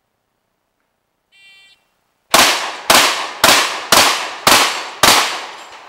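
A shot timer beeps once, then a semi-automatic 12-gauge shotgun, a Mossberg 930 SPX, fires six rapid shots about half a second apart at a steel plate rack, each shot trailing off in a short echo.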